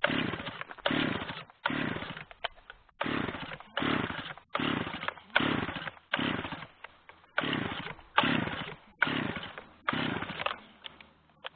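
Stihl 009L two-stroke chainsaw revving in over a dozen short bursts, about one every three-quarters of a second, each swelling and falling away; the owner says the saw still doesn't run 100% right.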